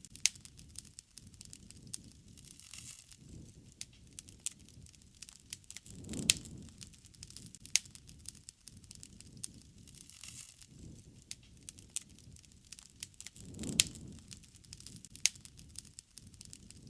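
Campfire crackling: irregular sharp snaps and pops over a low rumble, with a fuller whoosh swelling about six seconds in and again near fourteen seconds.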